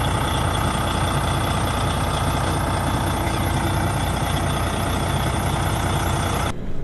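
DAF XF truck's diesel engine idling steadily, heard from outside beside the cab; the sound cuts off abruptly just before the end.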